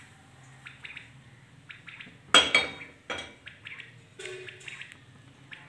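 Kitchen utensils knocking and scraping against a nonstick frying pan and a plate as a cooked egg paratha is taken out of the pan. The loudest is a sharp clatter about two and a half seconds in, followed by a few lighter clinks.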